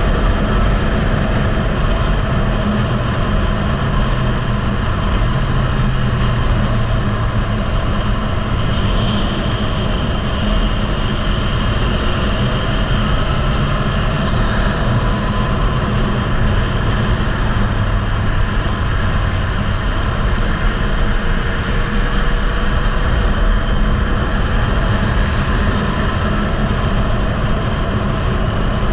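Heavy wind noise buffeting the microphone at track speed on a Yamaha MT-09, with the bike's inline three-cylinder engine faintly underneath, its pitch drifting as the rider works the throttle.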